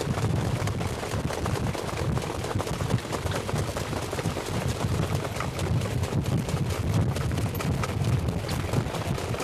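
Trotting horses' hooves beating on the track, a dense run of knocks, together with the rattle of a racing sulky, heard from a camera mounted on the sulky. A steady low wind rumble sits under it.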